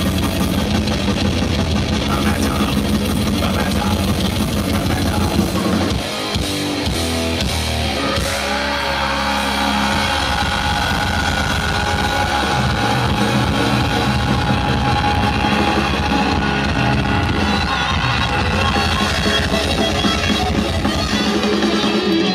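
Heavy metal band playing live through a festival PA: distorted electric guitars, bass and drums. About six seconds in the low end drops away briefly, then sustained guitar notes ring over the band.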